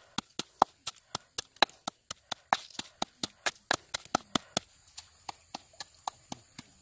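Stone pestle pounding chilies and garlic in a small mortar: quick, even knocks at about four strokes a second, which turn softer about four and a half seconds in.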